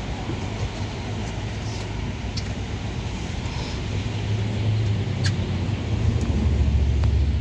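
Minibus engine and road rumble heard from inside the passenger cabin, growing louder in the second half as the bus pulls harder, with a few light clicks and rattles.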